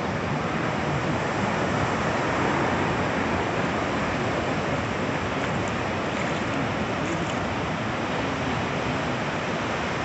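Sea surf breaking on a flat sandy beach: a steady, even wash of waves with no single break standing out.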